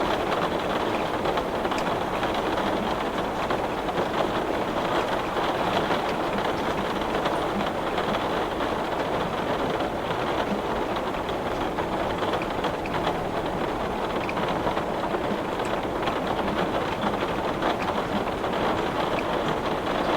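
Heavy rain beating on window glass, a steady dense patter of drops with no letup.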